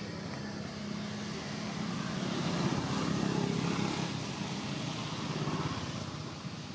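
An engine running steadily, swelling louder for a couple of seconds midway and again briefly near the end.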